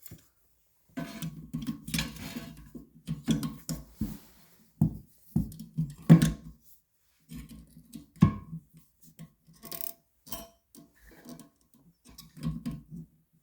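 Plastic parts of a Fluidmaster toilet fill valve being handled and hand-tightened in the tank: irregular knocks, clicks and scraping, busiest in the first half.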